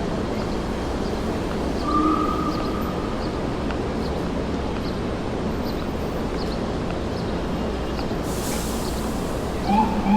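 Manhattan street ambience: a steady wash of traffic noise with faint, scattered bird-like chirps, a brief steady tone about two seconds in and a short burst of hiss around eight seconds. Near the end an emergency vehicle's siren starts up, loudly.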